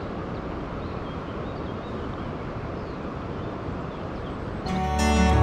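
Steady rush of river water flowing, with a few faint bird chirps. Acoustic guitar music comes in near the end.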